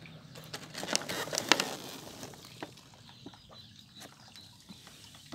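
Foam packing peanuts and clear plastic packaging rustling and crinkling as a plant wrapped in plastic is lifted out of a cardboard box. The sharpest crackles come about a second in, with scattered lighter clicks after.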